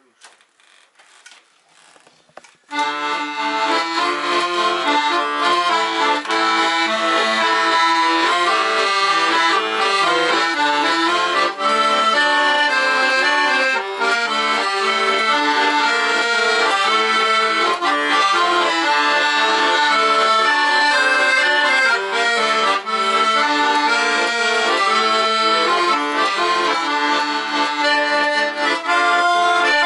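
Weltmeister button accordion played solo: after a few faint clicks, it starts about three seconds in and plays a wartime song, with melody over steady chords.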